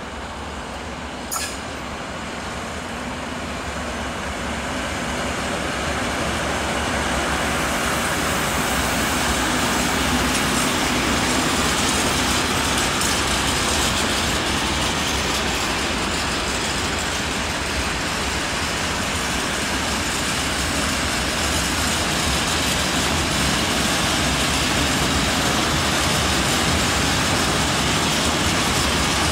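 Freight train hauled by a PKP Cargo ST48 diesel locomotive passing close by. It grows louder over the first several seconds as it approaches, then the wagons' wheels roll and clatter steadily over the rails.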